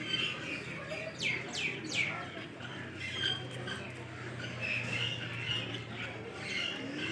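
Many caged aviary birds chirping and squawking together, with three quick falling calls in a row about a second in.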